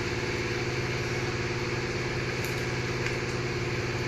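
Engine idling steadily with an even, fast beat.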